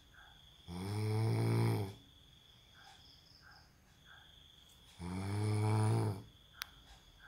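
A man snoring in his sleep: two loud snores, each just over a second long, about four seconds apart.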